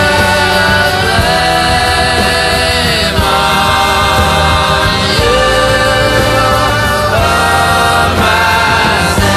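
Background music: a song with a choir of voices singing sustained lines over a steady accompaniment.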